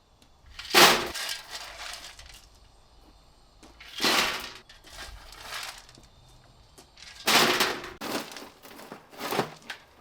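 Construction work: about five short, sharp bursts of clattering, crashing noise, spread irregularly with quiet gaps between them.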